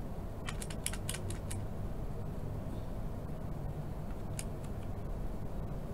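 Computer keyboard keys pressed: a quick run of about six clicks in the first second and a half, then a single click later, as blank lines are added with the Enter key, over a steady low hum.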